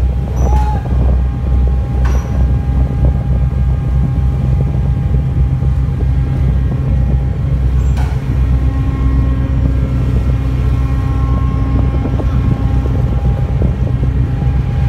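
Harbour tug's diesel engines running steadily, a loud low rumble heard on deck, with three short sharp clicks: near the start, about two seconds in and about eight seconds in.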